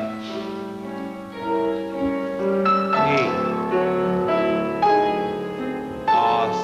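Piano playing ballet-class accompaniment: a run of chords and melody notes, each struck anew every second or so.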